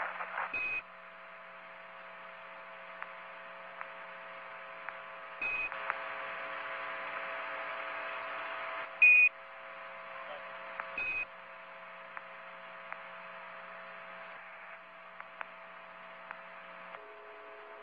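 Space-mission radio-link audio: a steady hiss with a hum of several steady tones, broken four times by a short high beep. Between the second and third beeps the hiss is louder, as if the channel were open.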